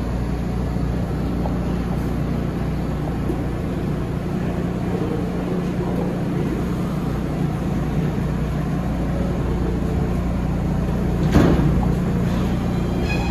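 New York City subway train in the station, giving a steady low hum and rumble, with a brief clatter about eleven seconds in.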